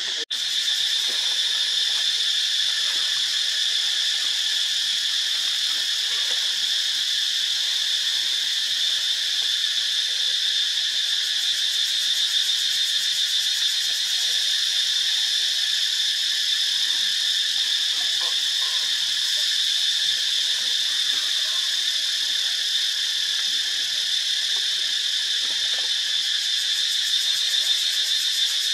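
Steady, high-pitched insect chorus, a continuous buzzing drone that holds without a break.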